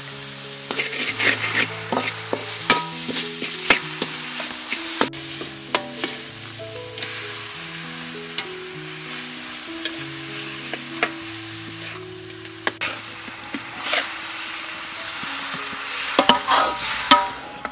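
Pork ribs sizzling in a hot wok while a metal ladle stirs and scrapes them, with frequent sharp clinks of the ladle against the pan. Soft background music with held notes runs underneath.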